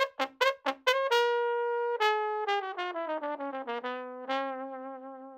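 Solo trombone playing a quick string of short tongued notes, then a held high note, then a falling run of notes that settles on a long low note near the end.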